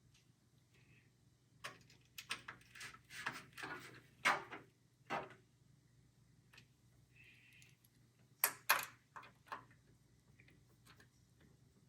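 Screwdriver tightening motherboard mounting screws into metal case standoffs: a run of sharp clicks and taps over a few seconds, then a second short cluster of clicks.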